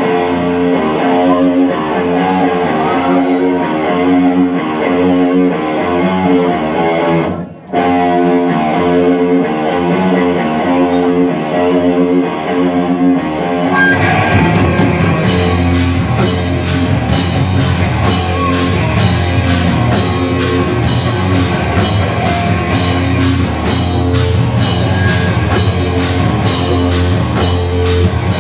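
Live rock band playing an instrumental passage: an electric guitar riff without drums, breaking off briefly about seven seconds in, then drums and the full band come in about halfway through with steady, evenly spaced cymbal hits.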